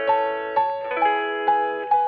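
Instrumental background music: a bright melody of ringing notes struck about two a second.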